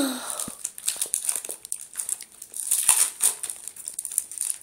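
Foil wrapper of a Pokémon TCG booster pack crinkling as it is handled and opened, with irregular crackles and small ticks.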